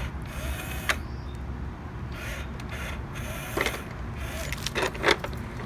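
Small electric motor of a motorized toy truck whirring in short spurts, with a few sharp clicks and knocks of plastic and small rocks.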